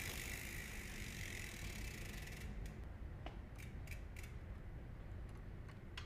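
Bicycle rear freehub ratcheting as the wheel spins, a steady fast buzz that stops abruptly about two and a half seconds in, followed by a handful of separate sharp clicks.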